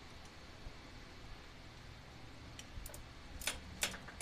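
Hand tools and spark plugs clicking against metal while plugs are changed on an engine, a few sharp clicks in the second half with the two loudest about a third of a second apart, over a faint steady hum.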